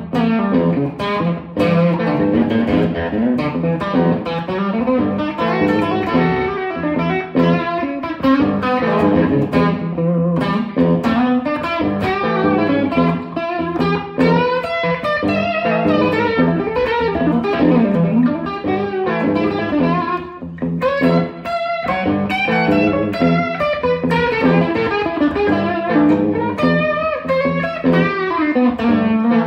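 Stratocaster-style electric guitar playing a solo of quick, closely picked note runs.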